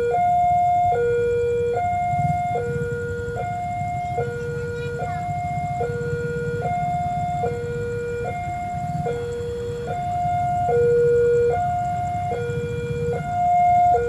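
Railway level-crossing warning alarm sounding its two-tone signal, switching evenly between a higher and a lower note a little under once a second, over a steady low rumble. It is the crossing's warning that a train is approaching and the barrier is closed.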